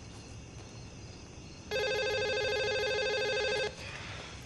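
Telephone ringing: one ring about two seconds long, starting a little under two seconds in.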